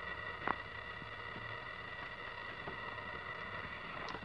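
A light metallic click about half a second in as a seat-rail bolt is handled, against a steady faint high-pitched hum.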